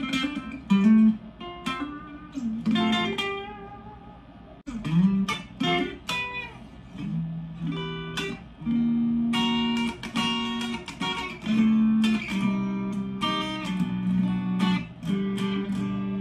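Harley Benton Modern Strat SSH electric guitar played with a clean tone: quick picked single-note lines, then longer ringing notes and chords from about eight seconds in.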